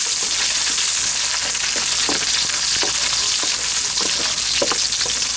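Bacon sizzling in hot oil in a frying pan: a steady hiss with scattered small pops and crackles.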